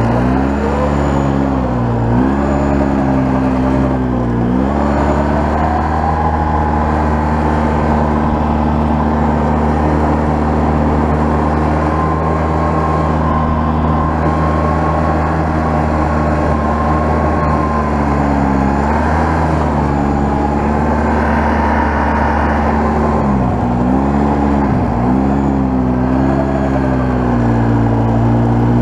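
2002 Polaris Sportsman 700 ATV engine running while plowing snow with its front plow. The engine pitch dips and climbs with the throttle several times near the start and again in the second half, and holds steady in between.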